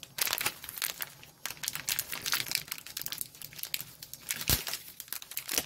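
Crinkling and rustling of a dried spaghetti package's wrapper as it is handled and opened, a dense run of crackles with a couple of sharper snaps near the end.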